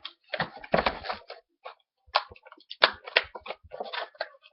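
Plastic toy packaging crinkling and clicking in irregular bursts as an action figure is worked free of its box and fastenings.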